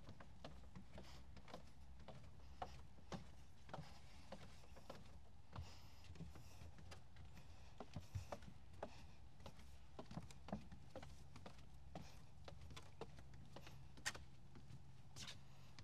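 Faint footsteps walking at an even pace, roughly two steps a second, over a steady low rumble.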